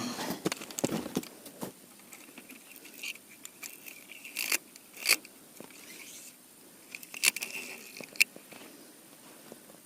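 Close handling noises: scrapes, rustles and sharp clicks, busiest at the start, then scattered clicks with a faint high whine twice in the middle.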